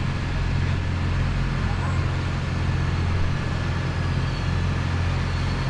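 Diesel engine of a large green John Deere farm tractor running steadily at low speed as the tractor rolls slowly forward, a steady low hum.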